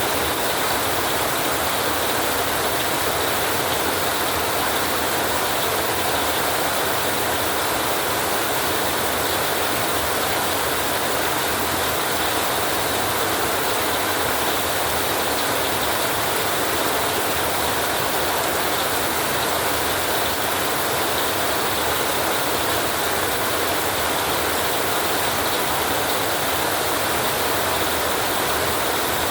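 Steady rain falling on a tin roof: an even, dense hiss that holds level throughout, with no thunder.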